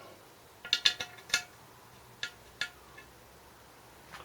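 Metal hand tools and sockets clinking as they are handled: a quick cluster of clinks about a second in, then two single clinks.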